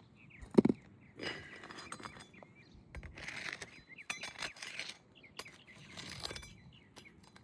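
Metal pry bar on asphalt shingles: one sharp knock about half a second in, then several short scraping, clinking bursts as the bar is worked under the shingle tabs to test them for delamination.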